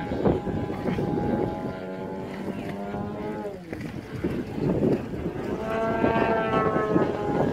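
Giant-scale RC Extra 330SC model aerobatic plane's engine and propeller droning in flight. Its pitch falls about three seconds in, then rises again as the plane manoeuvres.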